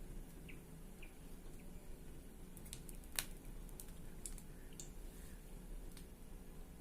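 Quiet kitchen with a faint steady low hum and a few light clicks, one sharper click about three seconds in.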